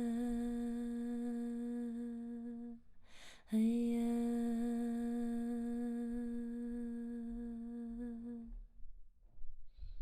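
A woman's voice humming in sound-healing vocal toning: two long notes on the same steady pitch, with a quick breath in between about three seconds in. The second note stops about a second and a half before the end.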